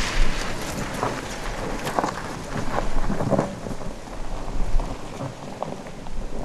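BMW X3 SUV driving slowly over a rocky dirt track: the tyres crunch and crackle over loose gravel and stones, with a low rumble underneath.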